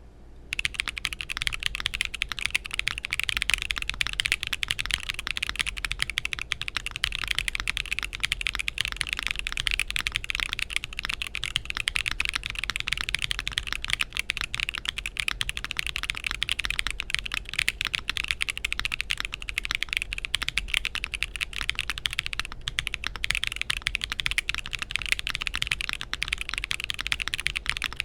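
Continuous fast typing on a MonsGeek M3 TKL mechanical keyboard with Akko V3 Cream Blue Pro tactile switches, polycarbonate plate, case foams and force-break mod: a dense stream of clacky keystrokes starting about half a second in.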